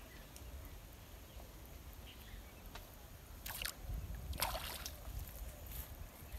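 Two short splashes in the pond, a little after three seconds and again around four and a half seconds, as a hooked fish thrashes at the surface on a bamboo-pole line, over a faint low rumble.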